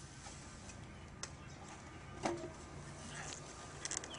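Three short sharp clicks or knocks over a faint steady background: a light one about a second in, the loudest a second later, and a quick double click near the end.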